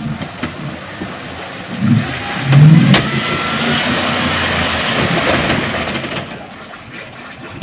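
Ford Raptor pickup's engine revving hard as the truck tries to pull itself out of deep mud, its spinning wheels churning mud and water. The revs rise about two seconds in, then a long rush of spinning-tyre and splashing noise fades toward the end.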